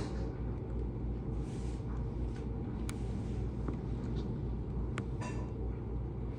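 Blizzard wind rumbling steadily against the house, heard from indoors, with a few short hisses and faint clicks.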